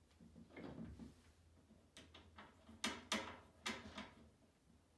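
Metal wire basket and screw being handled against the wall as a screw is set by hand: a soft rustle, then a handful of sharp metallic clicks and rattles from about two seconds in.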